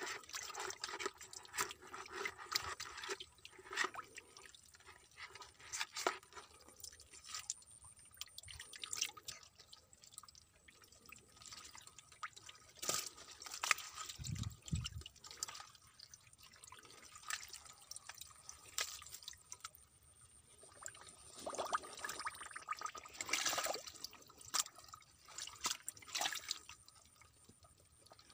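Wet mud and shallow water splashing, squelching and dripping as a landing net is dragged and a hand rummages through a muddy pool, in irregular slaps and drips with a dull thump about halfway.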